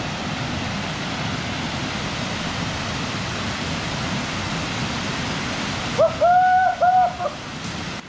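Steady rush of small waterfalls pouring into a rock pool. About six seconds in, a short hooting tone sounds over it, broken into three quick parts.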